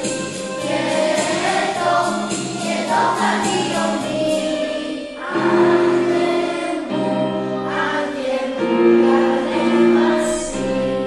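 Background music: a choir singing a carol, with a light regular percussion beat for the first five seconds, then long held choral notes after a brief dip.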